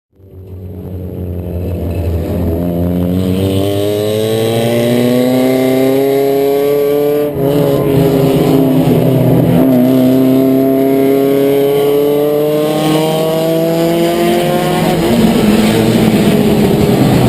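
Ford Escort race car's four-cylinder engine heard from inside the cockpit, fading in and then pulling hard with a steadily rising pitch. It breaks briefly for a gear change about seven seconds in, climbs again, and shifts once more near the end.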